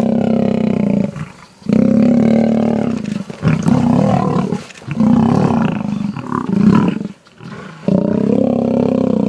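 Male lions and a downed Cape buffalo during a kill: a run of long, low calls, about five in a row with short breaks between.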